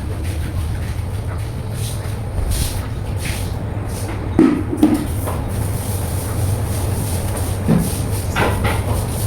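Wet vacuum cleaner running with a steady low drone, with a few short knocks about halfway through and again near the end.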